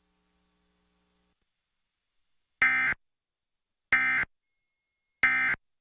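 Emergency Alert System end-of-message code: three short bursts of SAME digital data tones about 1.3 seconds apart, starting about two and a half seconds in, sent to mark the end of the alert.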